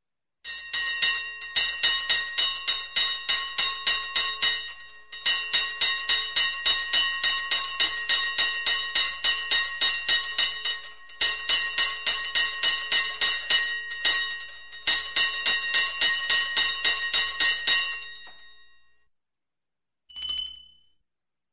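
Handheld fire bell rung fast by hand, its clapper striking about four or five times a second in four long runs with short breaks, then left to ring out. A brief, higher ding sounds near the end.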